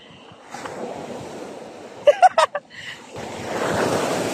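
Sea surf washing and breaking, getting louder about three seconds in as the waves come in around the wader. A short pitched sound cuts through about two seconds in, over in under half a second.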